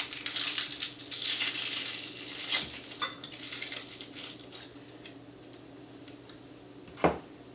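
Dry, papery onion skin crackling and rustling as it is peeled off by hand for about five seconds, then a single knock on the cutting board near the end.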